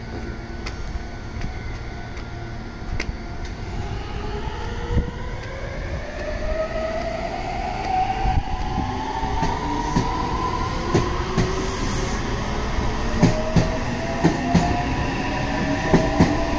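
Meitetsu electric train pulling away, its traction motors whining in several tones that rise in pitch as it gathers speed. The wheels click over rail joints more and more often.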